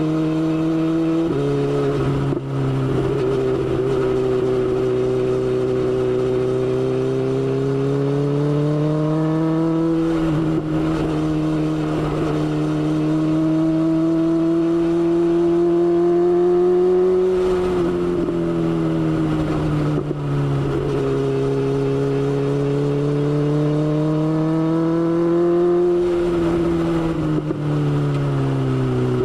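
BMW S1000XR's inline-four engine running under way. Its pitch climbs slowly and drops back several times, as with changes of throttle or gear.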